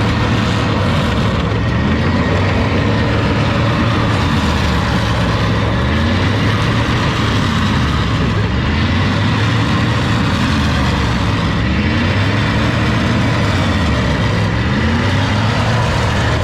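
Truck engine held at high revs in a burnout, its pitch swelling up and falling back again and again, over the hiss of spinning tyres. The sound cuts off abruptly near the end.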